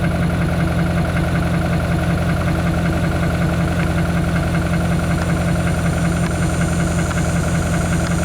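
An engine idling steadily: a low, even drone with no change in speed.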